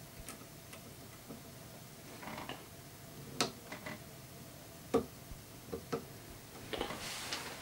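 Small, irregular clicks and taps of statue parts being handled and pressed into place by hand on a quarter-scale Spider-Man statue, with a handful of sharper clicks from about three seconds in and some light rustling.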